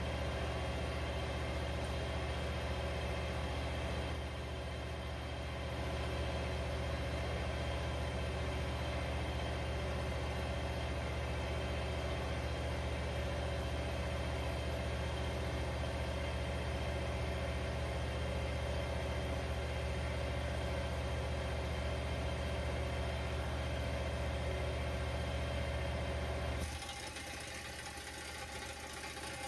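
A motor runs steadily with a low hum, then cuts off abruptly a few seconds before the end.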